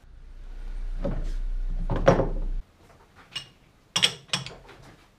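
Metal knocks and scraping as a steel disc is set into a large four-jaw lathe chuck and the jaws are tightened with a chuck key. A few clanks come through, and a low hum under the first part stops suddenly about two and a half seconds in.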